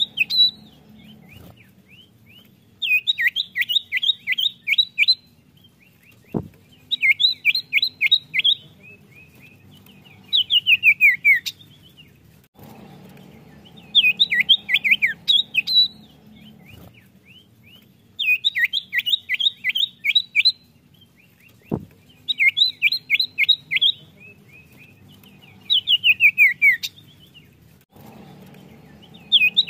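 Common iora (cipoh) singing: about two-second bursts of rapid, sharp, downward-sweeping notes, repeated every few seconds. A faint hum and two single clicks fall in the gaps between phrases.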